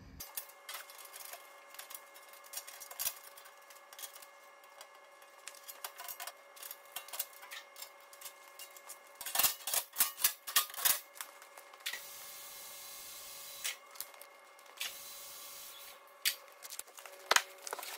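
A two-post vehicle lift being lowered: scattered metallic clicks and clanks, a quick run of them about halfway through, and two stretches of steady hiss near the end.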